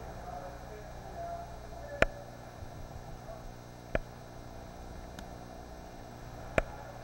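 Sharp knocks from a sea kayak and its paddle, three loud ones about two seconds apart and a fainter one, over a steady low rumble of the sea inside a rock cave.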